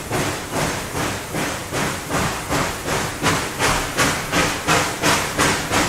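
Reading & Northern 2102, a 4-8-4 Northern steam locomotive, working hard from a start with the reverser in the corner: sharp exhaust beats about two and a half a second, slowly quickening as it gains speed, over a steady hiss of steam, heard from inside the cab.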